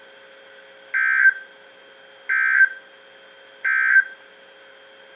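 Three short bursts of warbling digital data tone from a NOAA Weather Radio broadcast, each about a third of a second long and about a second and a half apart: the EAS/SAME end-of-message code that closes a warning. A faint steady hum of the radio runs under and between them.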